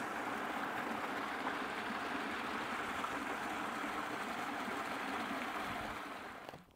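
Small mountain stream splashing and trickling over boulders in a short cascade, a steady rush of water that fades out near the end.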